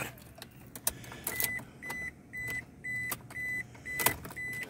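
Warning chime of a 2008 Scion tC beeping steadily, about twice a second, starting a little over a second in, with the driver's door open. Sharp clicks and knocks of handling inside the cabin sound between the beeps, the loudest about four seconds in.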